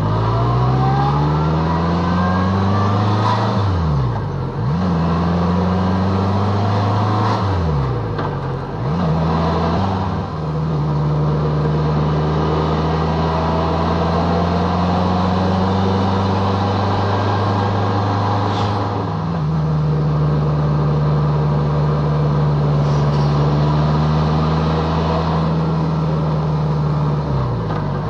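BMW K1200LT motorcycle's inline-four engine under way, revs climbing at first, then dipping and picking up again several times in the first ten seconds and once near the end, with a steady cruise in between. Wind noise runs underneath.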